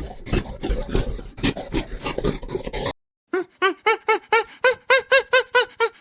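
Animal sounds in two parts. First comes a stretch of rough, irregular snuffling and grunting noises. After a sudden cut comes a quick run of short, high, arching calls, about four a second.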